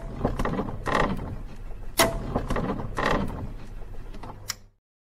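Channel-intro sound effects of mechanical clicking and ratcheting, with a sharp hit about once a second over a steady low hum. It cuts off abruptly shortly before one last hit.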